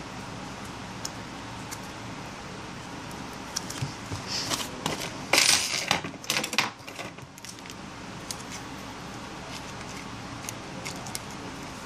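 Hand-handling noise from a smartphone display module being fitted into the phone's frame: a cluster of small clicks and a brief crinkly rustle of plastic film a few seconds in, over a steady faint hiss.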